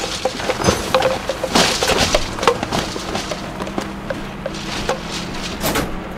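Footsteps going down a staircase: irregular knocks and scuffs, with a few louder rushing, rustling bursts.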